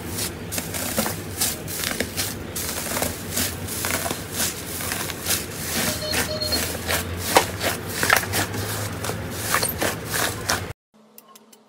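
Slime being handled for ASMR: a dense, uneven run of small clicks and crackles that cuts off suddenly near the end.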